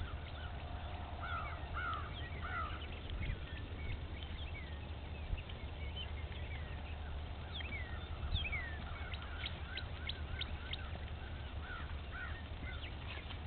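Wild birds calling and chirping in a rapid scatter of short, falling calls, busiest about two-thirds of the way through, over a steady low rumble of wind on the microphone.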